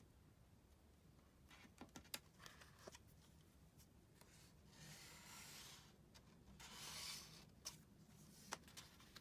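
Faint handling of folded card stock: a few light taps and clicks, then two soft sliding rubs of paper on paper, about five and seven seconds in.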